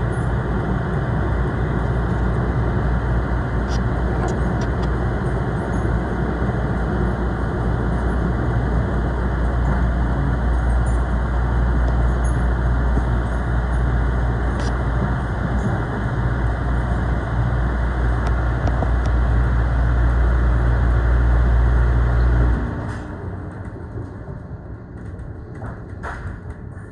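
Commuter train running at speed, heard from inside the passenger car as a steady, loud low rumble with a few faint clicks. About 23 seconds in, the low rumble cuts off suddenly and the sound becomes much quieter.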